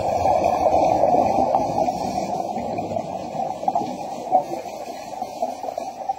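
Underwater rush of air bubbles that fades gradually over several seconds: a scuba diver exhaling through the nose to clear a partly flooded mask.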